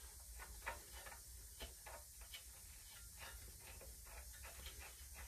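Faint, irregular light clicks, a few a second: a socket ratchet on an extension bar clicking as a spark plug is turned into the cylinder head.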